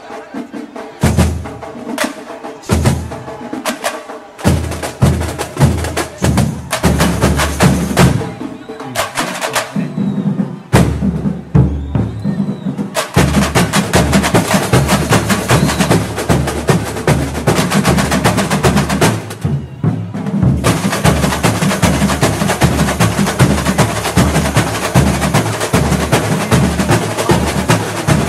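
Samba school bateria, a drum and percussion ensemble, playing. It opens with separate hits and short phrases with pauses between them. From about halfway the full ensemble plays a steady fast samba groove with deep drum beats underneath, stopping once briefly about two-thirds in before coming back.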